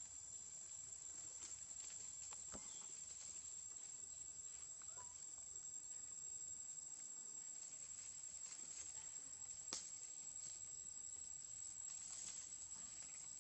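Forest insects droning in one steady high-pitched tone, with a couple of faint clicks, the sharpest about two-thirds of the way through.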